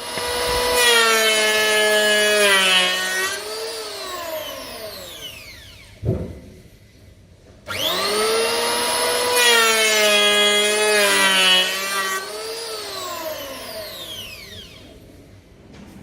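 Handheld electric planer run twice, each time a high machine whine that sags in pitch as it cuts into a camphor wood board, then winds down with falling pitch. A short knock comes about six seconds in, between the two runs.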